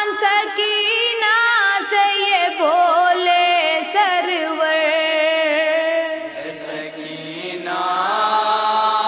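A young boy reciting a nauha, an Urdu mourning elegy, unaccompanied, in a sliding, ornamented chant. The line ends about six seconds in, and lower voices take up the chant about a second and a half later.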